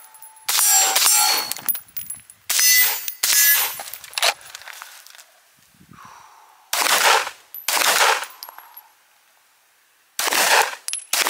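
Handgun shots fired mostly in pairs, about half a second apart, four groups in all, with a thin metallic ring after some of them.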